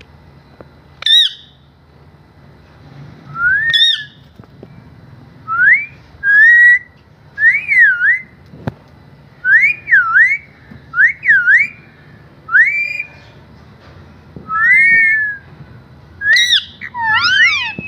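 Parrot whistling a series of about a dozen short whistle notes, each sliding up and down in pitch, with a few sharper, higher calls mixed in.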